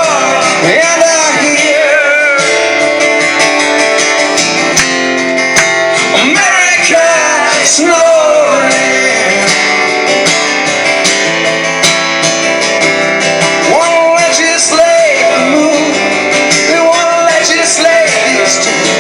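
Live song performance: acoustic guitar strumming with a singing voice.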